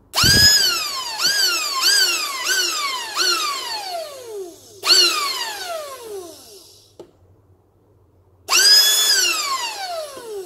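775 DC motor of a homemade 3D-printed pump, run dry by touching its lead to a 12 V battery terminal. It whines up to speed at once and falls in pitch as it coasts down whenever contact is broken. It is tapped on several times in quick succession at first, then given two more separate bursts about five and eight seconds in, each winding down.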